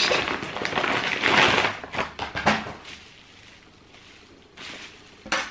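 Paper rustling and crinkling as a shoebox and its wrapping are handled, dense for about the first two seconds and then quieter, with a couple of light knocks in the middle and near the end.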